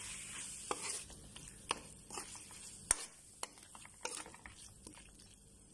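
A spatula stirring and scraping diced tomatoes and onion in a nonstick frying pan, with sharp taps against the pan about once a second over a faint sizzle that fades toward the end.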